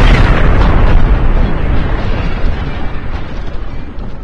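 Explosion sound effect: the loud, deep tail of a blast that slowly fades away.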